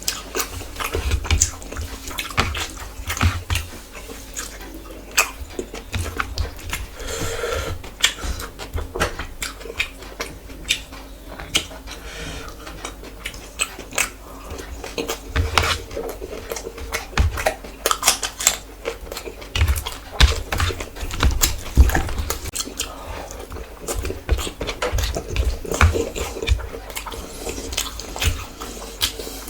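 Close-miked chewing and lip-smacking as someone eats rice and curry: a steady run of short wet mouth clicks and smacks, with occasional low thumps.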